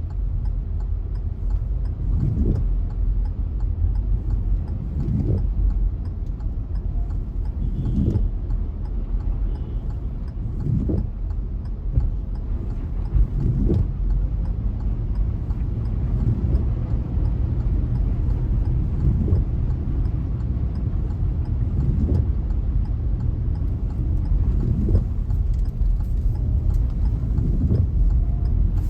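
Low, steady rumble of a car driving on a rain-soaked road, heard from inside, with a brief sound repeating about every three seconds.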